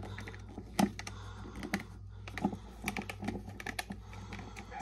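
Irregular plastic clicks and taps from an electric gravity salt grinder being handled while its grind-adjusting knob at the top is turned. The loudest knock comes about a second in.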